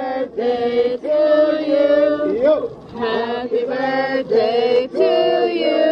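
A group of restaurant waiters singing a birthday song together, in held, chant-like phrases with short breaks between them.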